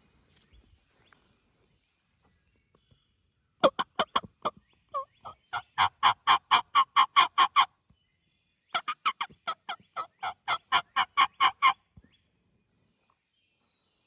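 Turkey calling: two loud runs of rapid, evenly spaced notes, about seven a second. The first run lasts about four seconds, and a second run of about three seconds follows after a short pause.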